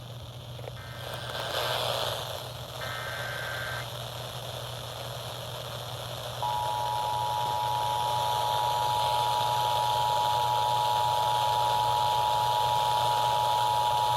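Emergency Alert System transmission between warnings: two short bursts of the SAME digital header data in the first few seconds, then, from about six seconds in, the EAS two-tone attention signal, a steady dual tone that runs loud to the end. A steady hiss and low hum sit underneath throughout.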